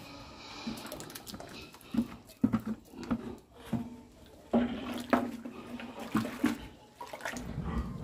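Water poured from a metal bucket into a large iron wok, splashing unevenly, with several sharp knocks and clanks of the bucket and wooden paddle against the pan.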